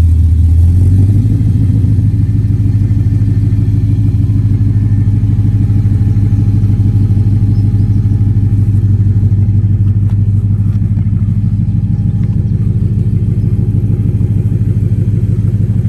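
Supercharged V8 of a Nissan Titan XD idling steadily through a custom 4-inch exhaust, still cold and warming up after a remote start. A deep, even exhaust pulse, slightly louder in the first second.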